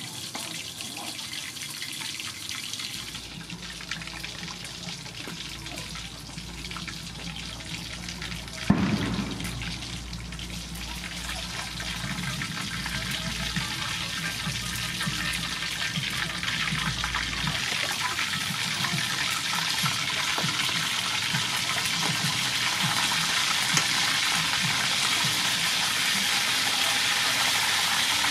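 Whole fish frying in hot oil in a wok: a dense, crackling sizzle that grows steadily louder over the second half. Before it, water splashes as vegetables are washed, and there is a single loud thump about nine seconds in.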